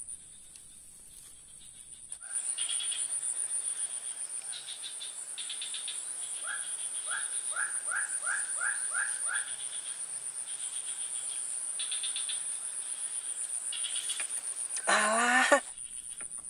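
Swamp chorus of insects and frogs: a steady high-pitched insect drone with repeated pulsed chirps, and a run of about seven quick rising calls a little past the middle. Near the end a loud wavering animal call cuts in.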